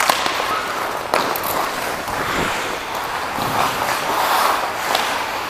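Ice skate blades carving and gliding on a rink, heard close up from a player-worn camera, with a few sharp knocks: one about a second in and one near the end.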